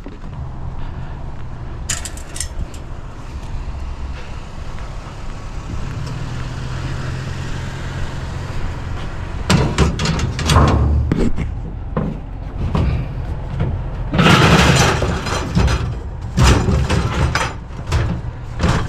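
Clanks and bangs of a metal fire pit base being handled, in clusters with the loudest past the middle, over a steady low hum.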